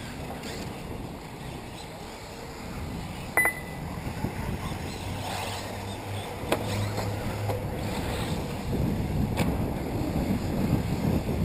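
Wind rumbling on the microphone, growing stronger towards the end, over the faint running of electric RC buggies on a dirt track. About three and a half seconds in there is a sharp click with a short high beep, and two lighter clicks follow later.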